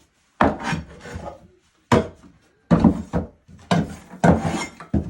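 Scraping and rubbing on wooden chicken-coop nesting boxes as they are cleared out, in about five irregular, uneven strokes.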